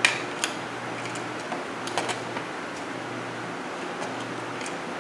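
Small plastic toy pieces clicking and tapping against each other and the tabletop as they are handled: a handful of light, scattered clicks over a faint steady hum.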